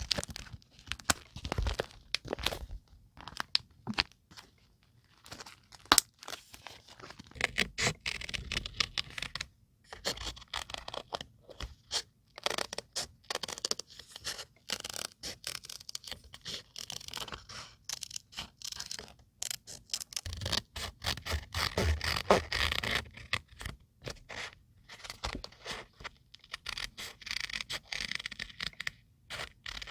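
Paper being handled for scrapbooking: irregular scraping, scratching and tearing of paper, broken by short taps and clicks.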